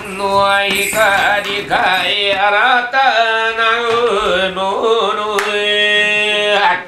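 Male voice chanting a Bitchū kagura song in long, wavering held notes.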